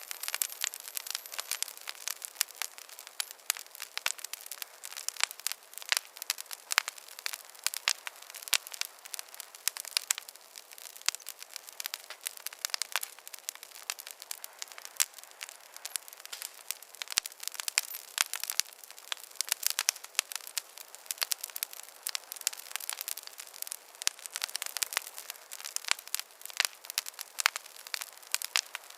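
Wood fire crackling in a fireplace: a steady stream of irregular sharp pops and snaps over a soft hiss.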